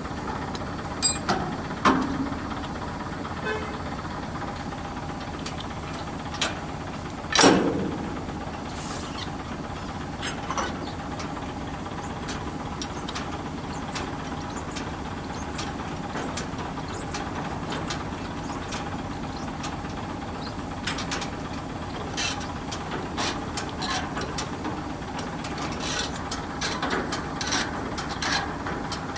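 Truck's diesel engine idling steadily, with scattered metal clicks and knocks as the trailer's connections at the back of the cab are handled; one louder knock about seven seconds in, and a run of small clicks near the end.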